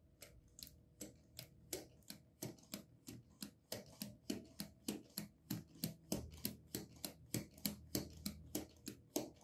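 Plastic LEGO Technic mechanism clicking as it is hand-cranked. The clicks are sparse at first, then settle about two seconds in into an even rhythm of about three clicks a second.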